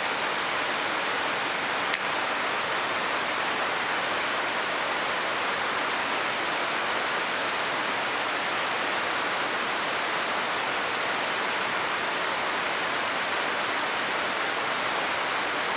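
Steady, unbroken rushing noise at an even level, with one brief click about two seconds in.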